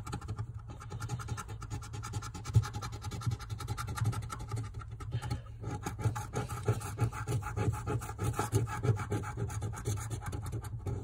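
Coin scraping the coating off a scratch-off lottery ticket in rapid back-and-forth strokes, pausing briefly about halfway.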